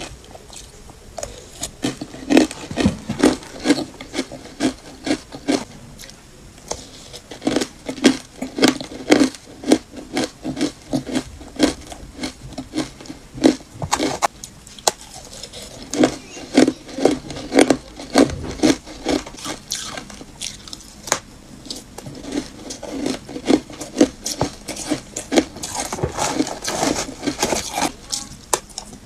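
Matcha-powdered ice crunched between the teeth in quick runs of crisp cracking crunches, with short pauses between mouthfuls. A metal spoon scrapes through the ice in the plastic tub between bites.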